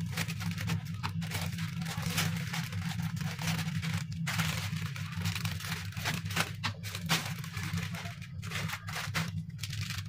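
Plastic instant-noodle packets being handled and snipped open with scissors: a run of short, irregular snips and crinkles, over a steady low hum.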